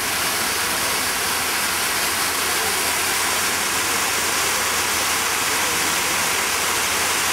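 Fountain water pouring steadily over the lip of a cascade into a shallow basin, a continuous even splashing rush.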